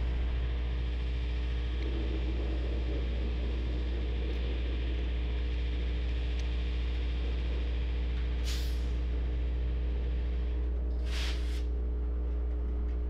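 Electric locomotive humming steadily at a fixed pitch, with two short hisses of air about eight and eleven seconds in.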